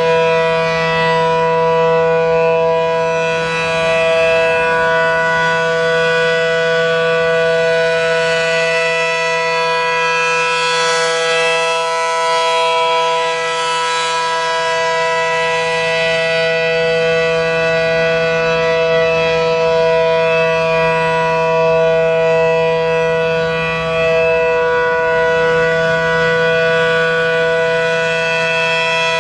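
Refurbished ACA P-10 outdoor warning siren (three-phase Allertor unit with P-10 intake and horn) sounding the steady alert signal: a loud, sustained wail held at one pitch, swelling slightly in loudness now and then.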